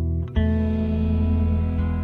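Music: a held chord, then a new chord struck about half a second in that rings on.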